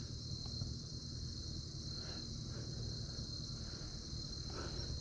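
A steady high-pitched chorus of crickets, unbroken, with a low steady rumble underneath.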